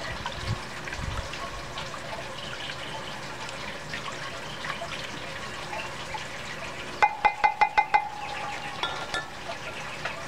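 A plastic spoon slowly stirring lye solution in a glass Pyrex measuring cup, with faint liquid sounds and small clinks against the glass. About seven seconds in there are six quick, sharp taps with a brief ring, as the spoon is knocked against the glass cup.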